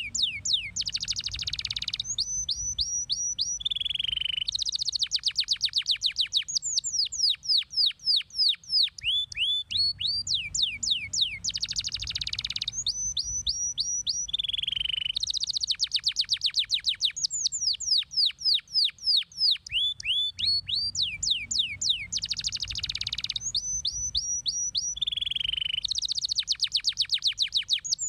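Domestic canary singing a long, fast song of high down-slurred whistled notes, run together into rapid trills and rolls with a short buzzy passage. The same sequence of phrases repeats about every ten seconds.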